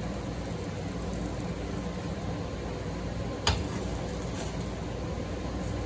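Cachapa batter frying in butter in a nonstick frying pan, a steady sizzle. One sharp click about three and a half seconds in, as the spatula knocks against the pan.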